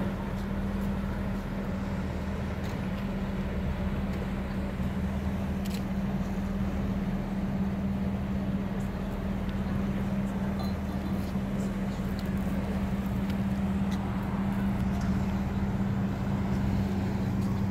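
Small tugboat's engine running steadily with an even low hum as it works at the stern of a tall ship.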